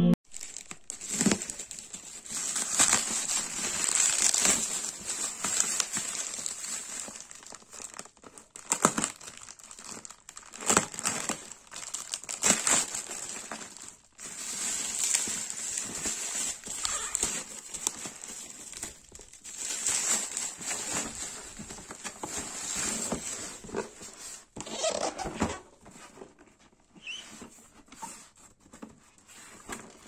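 Plastic bubble wrap and packaging bag crinkling and rustling as a cardboard product box is pulled out and handled, in irregular bursts that die down near the end.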